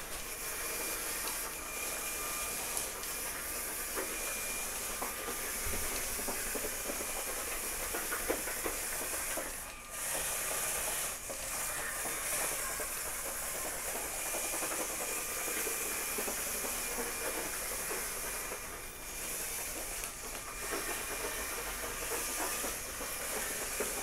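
LEGO EV3 motors whining as the remote-controlled omni-wheel robot drives across a wooden floor: a steady hissing whir with a faint motor whine that comes and goes, dropping out briefly about ten seconds in as it stops.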